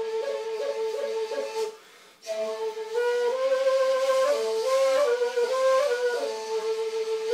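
Kurdish blûr, a long wooden end-blown shepherd's flute, playing a solo melody of short stepping, ornamented notes. The tune breaks off for a breath about two seconds in, then carries on.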